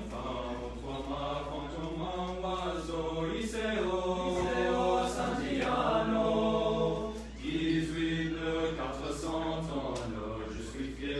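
Male choir of about a dozen young men singing a cappella in harmony, holding long notes, with a short break between phrases about seven seconds in.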